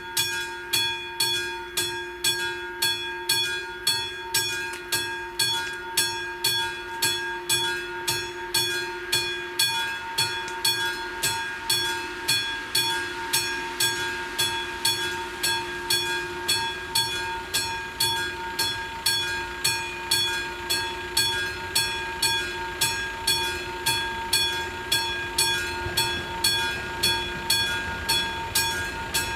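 Level-crossing warning bell of AŽD 71 crossing signals ringing at a steady beat of a little under two strikes a second, each strike ringing on. It is the crossing's warning that a train is approaching.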